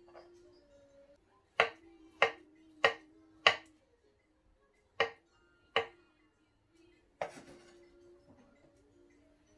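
Chef's knife chopping avocado on a wooden cutting board: four sharp knocks about two-thirds of a second apart, then two more, and a longer, scraping knock later on.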